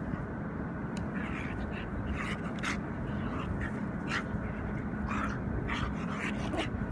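A German Shorthaired Pointer and a coyote-hybrid dog play-wrestling: a dozen or so short, sudden dog noises and scuffles in an irregular run, over a steady low hum.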